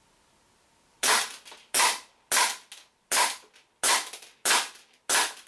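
WE M9 gas blowback airsoft pistol firing on green gas: seven sharp shots about two-thirds of a second apart, starting about a second in, each with the slide cycling.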